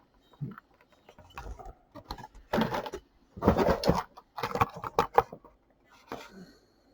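A chair being moved around and sat on: irregular scrapes, creaks and knocks. The two loudest are about two and a half and three and a half seconds in.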